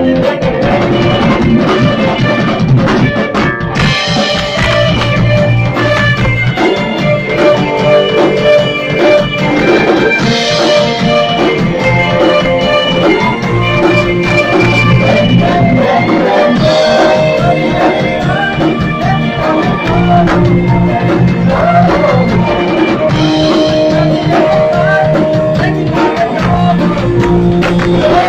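A rock band playing live in a rehearsal room: drum kit, electric bass and electric guitar playing together without a break.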